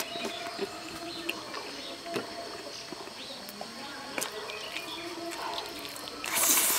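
A person eating braised chicken by hand: quiet chewing and lip smacks with scattered soft clicks. Near the end comes a short, louder, noisy slurp as meat is bitten and torn off a chicken leg.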